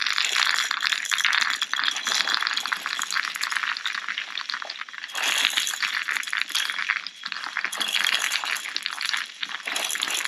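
Plastic 6 mm Tokyo Marui airsoft BBs rattling in a dense, continuous patter of small clicks as they are shaken over a BB sizing gauge with 5.95 and 5.96 mm holes, briefly easing twice midway.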